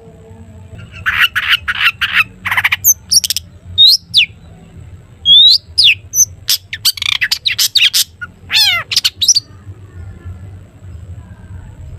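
Long-tailed shrike (cendet) singing in a busy burst: sharp chirps that sweep up and down in pitch mixed with harsh rasping notes and a quick run of falling notes, then falling silent for the last two seconds over a low steady hum. It is the full, varied 'toet toet' song used as a lure to set other shrikes singing.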